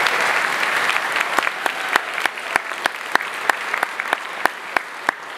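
Audience applause, a dense patter of many hands clapping that thins out after about a second and a half, leaving one loud clapper at about three claps a second over the fading applause.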